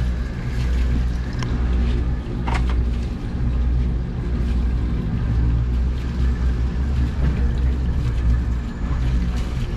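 A fishing charter boat's engines running with a steady low rumble, plus a single short knock about two and a half seconds in.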